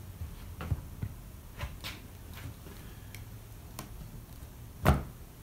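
Scattered light clicks and taps of stained glass pieces knocking against each other and the wooden worktable as a new copper-foiled section is set into a panel, with one louder knock near the end.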